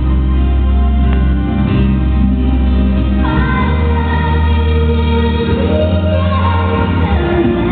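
Music with singing: a sung melody of long held notes that slides between pitches from about three seconds in, over steady sustained low notes.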